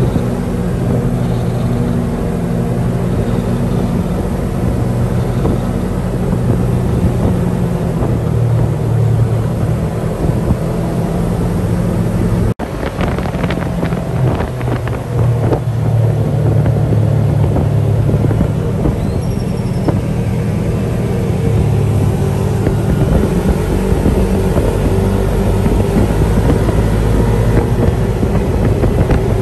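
Off-road buggy's engine running steadily while driving, heard from the open cab with wind on the microphone. The sound cuts out for an instant a little under halfway through, followed by a few rattles.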